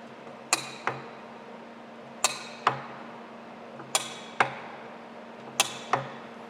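Sharp metallic clicks from the controls of a Takisawa TSL-550 manual lathe, four pairs in a steady rhythm, each click ringing briefly, over a steady hum.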